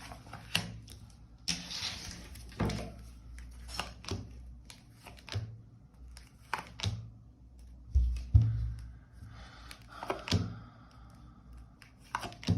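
Tarot cards being handled and laid down on a table: a scatter of soft clicks, slaps and thunks, with a couple of heavier low thumps about eight seconds in.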